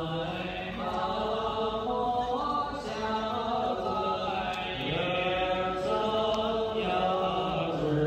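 Buddhist chanting by several voices, sung on long held notes in a slow, unbroken line.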